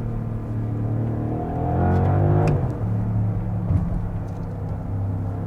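2024 Audi SQ8's twin-turbo 4.0-litre V8 petrol engine accelerating hard from first gear, its note rising for about two seconds. About halfway there is a sharp crack as the revs drop at a gear change, and then it pulls on steadily.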